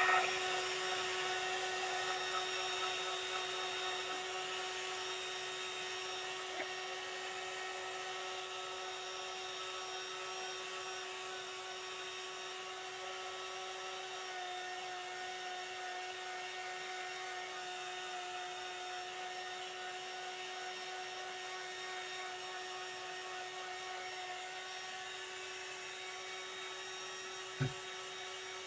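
Handheld craft heat gun running steadily, a constant motor hum with a whine, blowing hot air to dry transfer paste. A short knock near the end.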